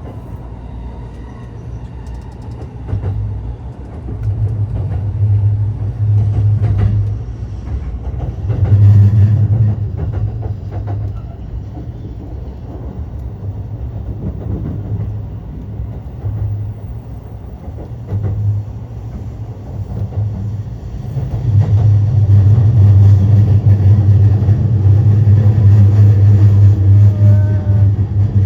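Commuter train running, heard from inside the carriage: a continuous low rumble that swells and fades, growing louder and steadier about three-quarters of the way through.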